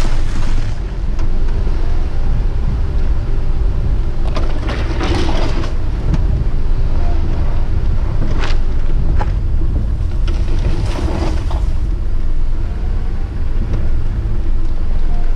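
Wind buffeting the microphone: a steady low rumble, with a few louder rushes of hiss.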